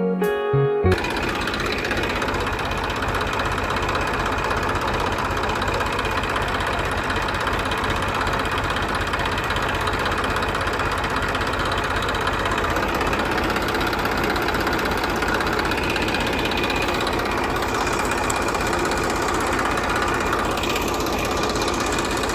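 Guitar music cuts off about a second in. The small motor of a model mini tractor then runs steadily with a fast, even chugging.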